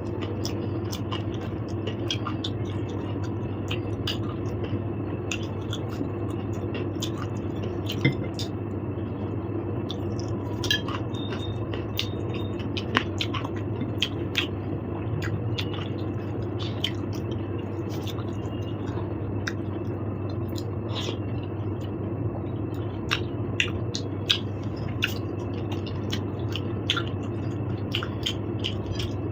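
A person chewing and eating, with scattered small clicks and mouth sounds, over a steady low hum.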